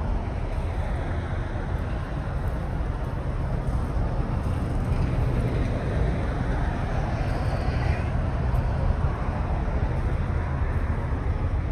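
Steady low rumbling noise with no clear single event, of the kind made by vehicles or wind on the microphone.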